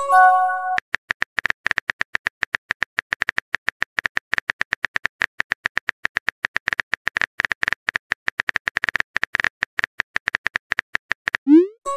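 Simulated phone keyboard typing: a rapid, even run of short key-tap clicks, about eight a second. A brief message-sent chime of several tones sounds at the start, and a short rising swoosh comes near the end as the next message goes out.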